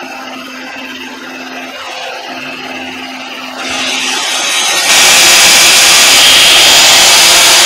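Mighty Mule gate-opener arm's 12 V motor and gearbox running as it swings the gate closed, with a steady hum that stops about four seconds in. From about five seconds in, a loud, steady rushing noise covers everything.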